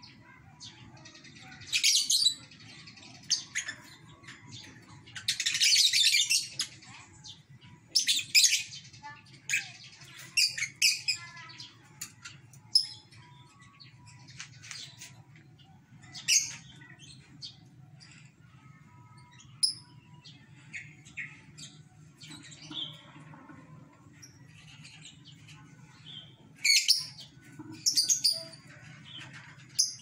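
Caged lovebirds chirping: sharp shrill calls scattered through, with several loud bursts of rapid chattering. The longest burst lasts about a second and a half, about six seconds in.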